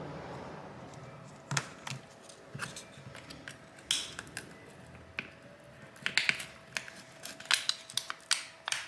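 Thin metal pry tool clicking and scraping as it is worked along the glued edge of a handheld's screen to break the adhesive. The clicks are scattered at first and come thicker over the last few seconds.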